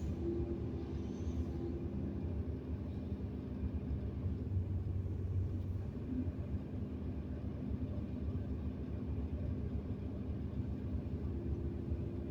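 Hydraulic excavator's diesel engine running steadily, a continuous low rumble with a steady hum above it.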